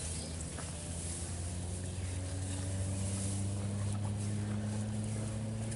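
An engine running steadily, a low even hum, with a few faint clicks and rustles over it.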